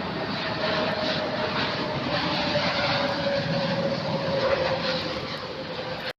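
Jet airliner passing, its engines a steady rush with a whine that slowly falls in pitch, cutting off suddenly at the very end.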